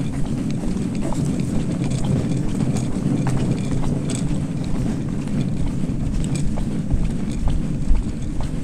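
Footsteps walking along an asphalt road, light clicks scattered over a steady low rumble.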